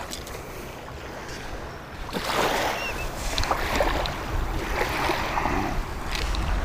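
Wind on the microphone and small waves lapping at the shore, getting louder about two seconds in, with scuffing and rustling as a landed striped bass is handled on the wet sand.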